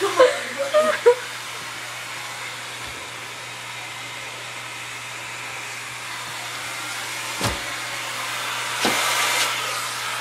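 Vacuum cleaner with a hose and nozzle running steadily, a hiss over a low hum, as it sucks flies off a window. Two sharp knocks about seven and a half and nine seconds in, the second followed by a brief louder rush of air.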